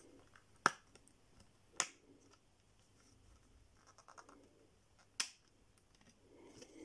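The PinePhone's plastic back cover being pried off: its clips come loose with three sharp snaps, about a second apart and then one more a few seconds later, with faint handling of the phone in between.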